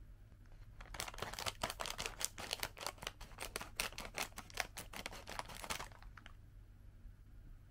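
Scissors cutting across the top of a plastic snack bag: a quick run of sharp snips and crackles of the packaging for about five seconds, starting about a second in.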